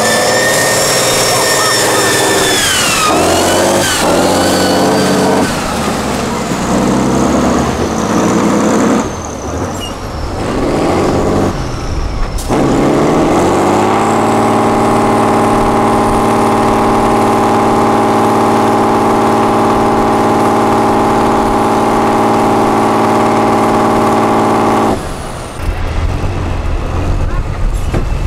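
Tatra 815 8x8 truck-trial truck's diesel engine under hard load, revving up and down for the first several seconds with a high whine gliding above it. A little past the middle it climbs to a steady high rev and holds it for about ten seconds as the truck climbs nose-up out of a muddy gully, then the revs drop off near the end.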